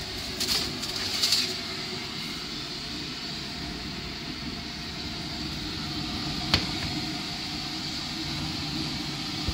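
A steady fan-like hum from a running kitchen appliance, with two brief rattles about half a second and a second in, and a single sharp click about six and a half seconds in.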